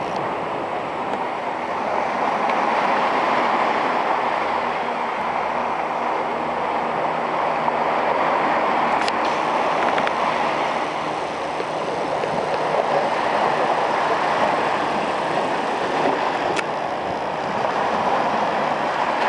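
Ocean surf washing onto a sandy beach: a steady rushing wash that swells and eases slowly, with two faint ticks.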